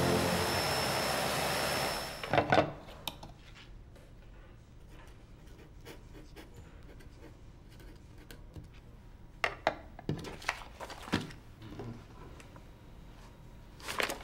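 Orchestral film score that cuts off about two seconds in. Then a dip pen's steel nib scratches faintly across paper, with a few sharp clicks and taps: one about two and a half seconds in and several between nine and eleven seconds in.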